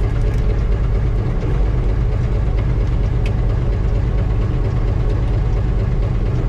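Brockway semi truck engine idling steadily, heard from inside the cab as a deep, even rumble.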